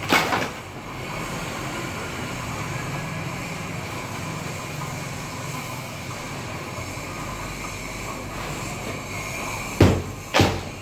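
Steady city street traffic noise, with a low engine sound swelling and fading in the first half as a vehicle passes. A few sharp knocks come at the start and again near the end.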